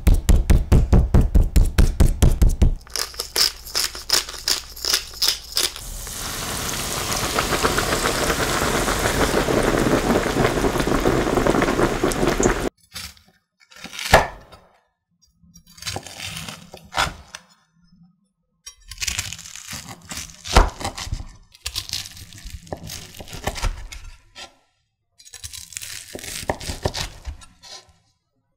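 A metal meat tenderizer pounding a thick pork loin on a wooden cutting board in rapid strikes, then lighter taps for a few seconds. Next a steady sizzle of breaded pork deep-frying in oil swells and holds, cutting off suddenly about halfway through. After that a chef's knife crunches through the crisp panko crust of the fried cutlet onto the board, slice after slice.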